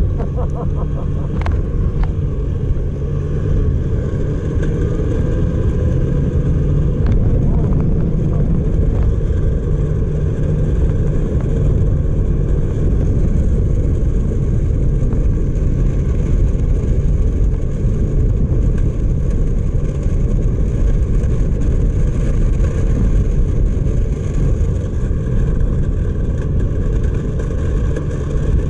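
Snowmobile engine running steadily at cruising speed, heard from the rider's seat over a heavy low rumble of wind and track.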